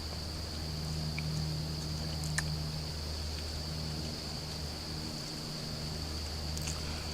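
Outdoor woodland ambience: a steady high-pitched insect drone with a low steady hum underneath and a single faint click about two and a half seconds in.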